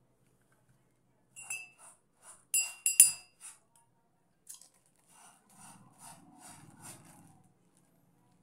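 A metal spoon clinking several times with a brief ringing, the loudest strike about three seconds in, followed by a run of softer scratchy sounds.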